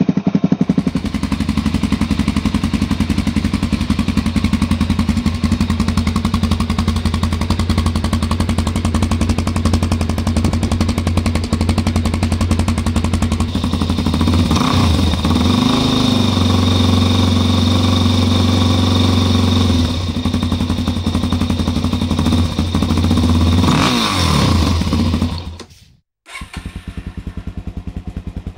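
Suzuki DR-Z400's single-cylinder four-stroke engine idling steadily through a Scorpion exhaust, with two short throttle blips, one about halfway through and one near the end. After a sudden cut, the same model idles through a Rocket exhaust for the last couple of seconds.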